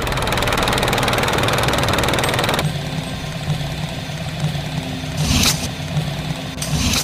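Helicopter rotor and engine noise heard from inside the cabin with the side door open. A loud rushing noise with a fast rotor pulse lasts for the first couple of seconds, then settles to a steadier lower hum. Two short, loud, noisy bursts come near the end.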